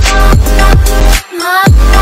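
Electronic dance music with a steady kick drum, about three beats a second, over deep bass. The bass drops out briefly just after a second in under a rising synth line, then comes back.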